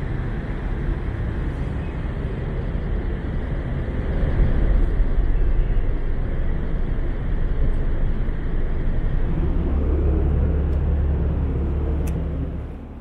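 Steady low rumble of a large car ferry berthing, heard from its open deck, swelling about four seconds in. It drops away sharply near the end as the door to the inside closes it off.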